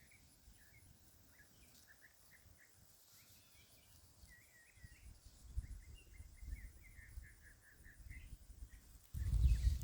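Faint outdoor birdsong: many short chirps and twitters. A low rumble swells from about halfway through, and a much louder low rumble cuts in suddenly near the end.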